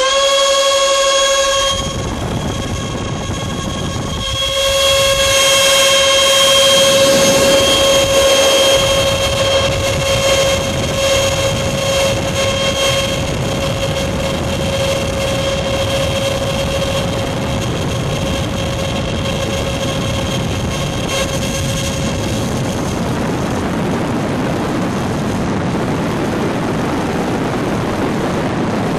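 Electric ducted fans of an E-flite F-15 model jet running at full power on a static thrust test, one exhaust duct narrowed by a plastic-cup cone: a steady high whine over a rush of air. The fans drop back briefly about two seconds in and come back up louder. The whine fades out late on, leaving the steady rush of air.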